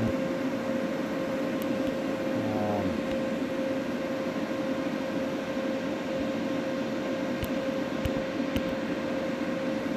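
Steady machine hum with a constant high whining tone running underneath, with a few faint ticks near the end.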